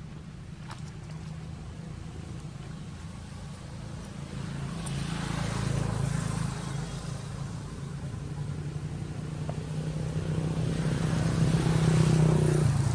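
A steady low motor drone that swells louder twice, about five seconds in and again near the end.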